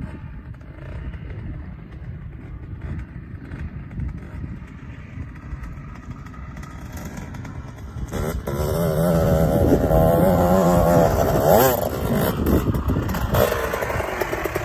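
2002 Kawasaki KX125 two-stroke motocross bike coming closer, much louder from about eight seconds in. Its engine revs up and down in pitch, with a quick sharp rev near the end.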